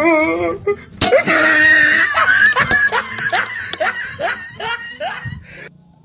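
Dubbed-in voice audio. A sung note with a strong wavering vibrato ends just after the start. About a second in, a rapid string of short rising vocal yelps begins, about three a second, and cuts off abruptly near the end.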